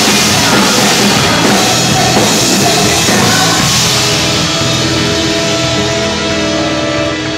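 Live rock band with drum kit, cymbals and guitars playing loud together with a wind and brass band. About four seconds in, the busy drumming gives way to a long held chord as the song closes.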